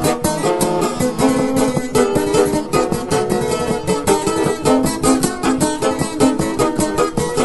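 Izvorno kolo folk dance tune played fast on plucked string instruments, with quick, evenly repeated notes over a steady driving beat.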